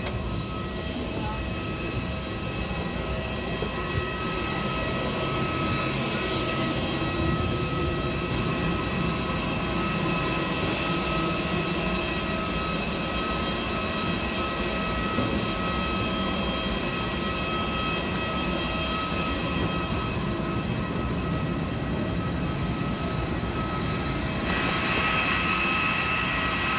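Steady whine and rumble of jet aircraft on an airport apron, several high tones held constant over a low rumble. About 24 seconds in the high whine changes and grows brighter.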